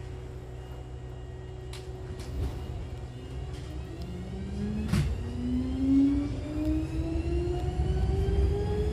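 Hankyu 7000-series electric train pulling away from the platform: the traction motors' whine rises steadily in pitch as it accelerates, over a growing low running rumble. A few sharp clicks come about two seconds in, and a louder one about five seconds in.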